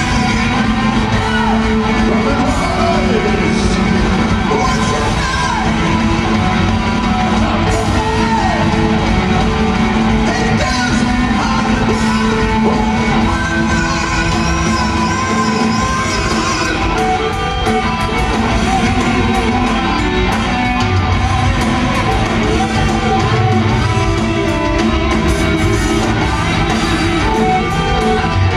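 Heavy metal band playing live in an arena, with a singer's voice over the band, heard from the stands with the hall's echo.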